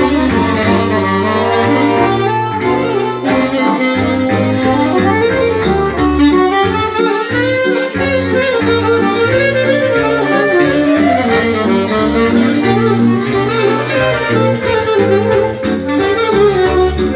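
Live band music: a saxophone playing the melody with an accordion, over a steady beat and bass line.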